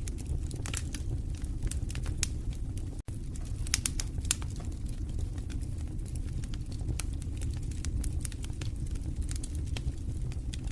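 Wood fire in a fireplace crackling, with sharp irregular pops and snaps over a steady low rumble of flames. The sound drops out for a split second about three seconds in.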